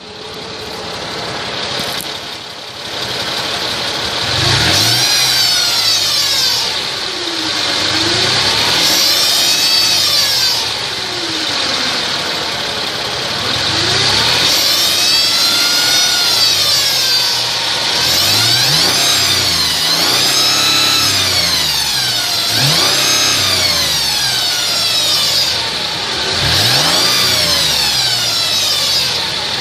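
2002 Mercedes ML320's 3.2-litre V6 engine revved up and down repeatedly, with a high-pitched whine from under the car that rises and falls with engine speed. The owner does not know what causes the whine.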